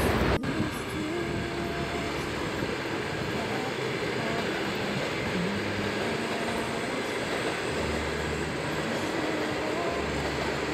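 Electric commuter train running past: a steady rolling noise of wheels on rails with a faint whine that shifts in pitch.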